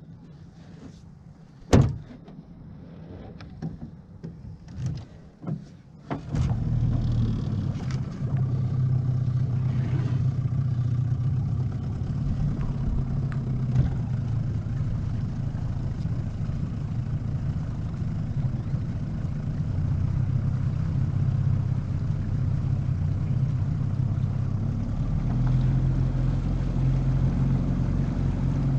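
A few sharp knocks on the boat, then about six seconds in a boat's outboard motor comes in, running with a steady low drone.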